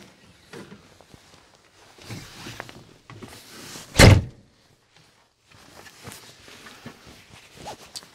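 Cab door of a John Deere 8260R tractor shut with one heavy thunk about four seconds in, amid shuffling, rustling and small knocks as someone climbs into the cab.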